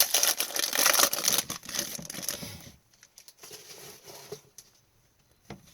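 Foil wrapper of an Upper Deck hockey card pack being torn open and crinkled for the first three seconds or so. After that come quieter rustles and light clicks as the cards are handled.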